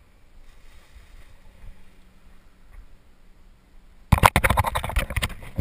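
Quiet at first. About four seconds in, a loud, irregular rustling and crackling starts suddenly: a parachute's nylon canopy and lines being handled and gathered up close to the camera after landing.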